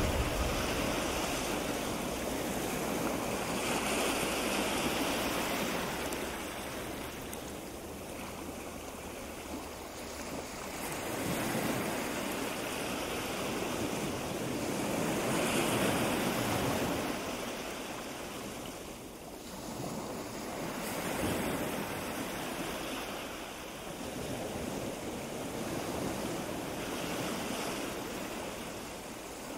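Wind rushing across the microphone, swelling and easing in gusts every few seconds.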